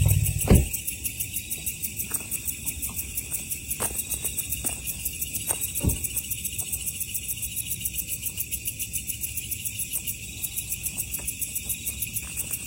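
Night insects, crickets or similar, chirping in a fast steady pulse of several beats a second. Two dull thumps stand out, one about half a second in and one about six seconds in, with a few faint clicks between.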